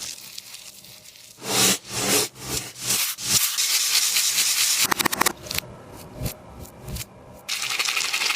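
Taba squishy toy being squeezed and rubbed by hand, giving repeated bursts of rustling, rubbing noise with short quieter gaps between them. About five seconds in there is a quick run of crinkly clicks.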